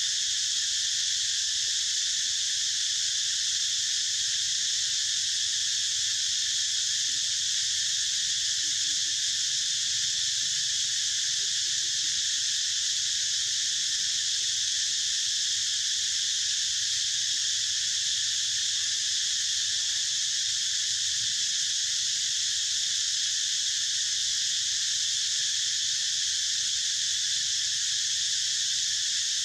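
A dense insect chorus shrilling steadily and high-pitched, without a break or change.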